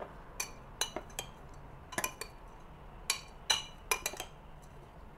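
Metal spoon stirring milk-moistened rolled oats in a glass coffee server, clinking against the glass about nine times at irregular intervals.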